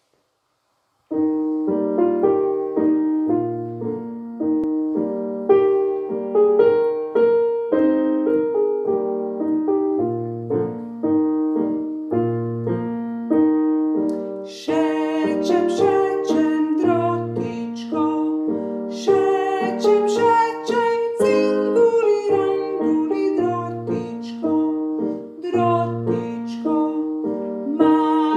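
Piano music playing a melody over a bass accompaniment. It starts about a second in, and higher, brighter notes join about halfway through.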